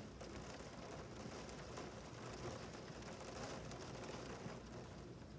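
Rain against a window: a steady, faint hiss with scattered light ticks of drops.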